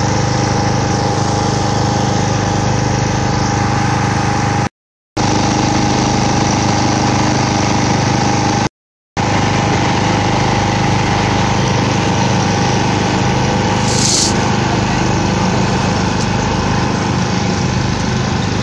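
A motor or small engine running steadily at a constant pitch, cut off twice by brief gaps of total silence.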